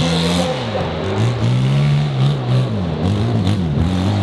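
Dirt bike engine revving, its pitch rising and falling again and again as the throttle is worked under load on a steep dirt hill climb.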